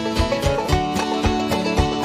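Upbeat bluegrass-style background music with plucked strings and a quick steady beat.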